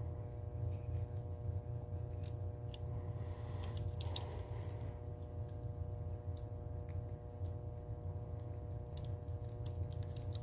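A few scattered small clicks and ticks from the metal mechanism of a 1938 Western Electric 5H rotary dial as grease is worked into its gears with a syringe applicator, over a steady low hum.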